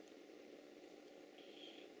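Near silence: room tone with a faint steady hum, and a brief faint rustle about one and a half seconds in.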